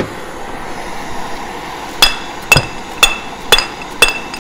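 Hot toothed propeller drive belt pulley being knocked to jar loose a bearing, which the repairer suspects is held by corrosion: a single sharp metallic strike, then about two seconds in a run of five ringing knocks about half a second apart.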